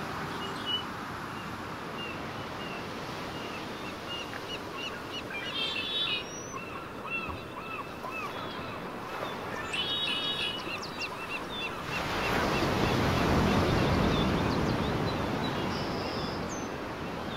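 Outdoor beach ambience with small birds chirping again and again in short high notes. About twelve seconds in, a louder rushing noise swells for a few seconds and then fades.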